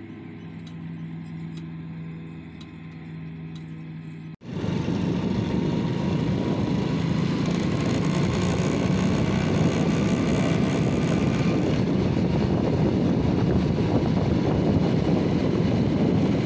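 A Hero motorcycle's engine idling steadily. After a sudden cut about four seconds in, the motorcycle is riding along the road, its engine running under a much louder rushing noise.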